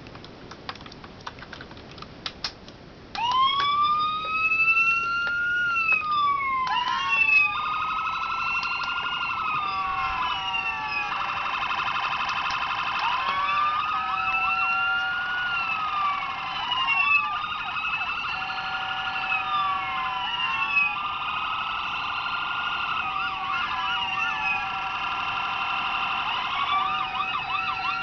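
A few sharp clicks, then the electronic siren modules fitted to 1/24 scale model police Tahoes start wailing through tiny speakers about three seconds in, in long rising and falling sweeps. From about seven seconds in a second siren overlaps with a fast warbling tone, so two sirens sound together.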